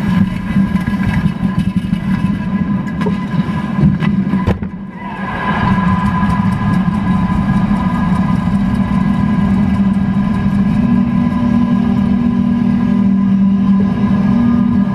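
Ice hockey arena crowd cheering a goal, with the arena's goal horn blaring in steady sustained tones. It swells about five seconds in after a brief lull, and before that there are a few sharp knocks over the crowd noise.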